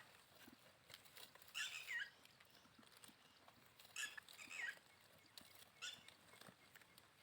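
Young goat bleating faintly: short, high calls that fall in pitch, three of them about two seconds apart.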